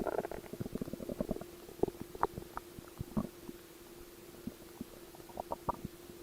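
Stomach gurgling and rumbling: a quick run of bubbly pops and gurgles in the first second or so, then scattered single pops and short gurgles.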